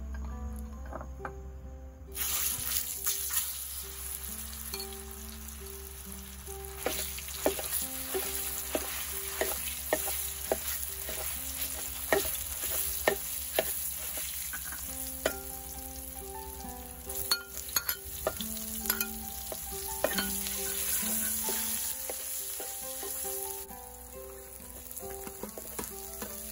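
Fish paste frying in hot oil in a wok: the sizzle starts about two seconds in as spoonfuls go into the oil, with a metal spoon and spatula clicking and scraping against the pan. The sizzle eases near the end.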